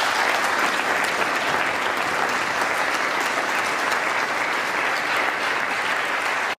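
Members of Congress applauding: a steady, dense clapping that cuts off abruptly at the end.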